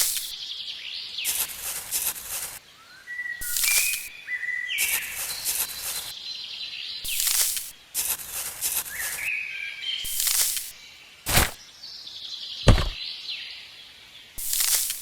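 Small birds chirping, with repeated short bursts of noise and two sharp knocks near the end.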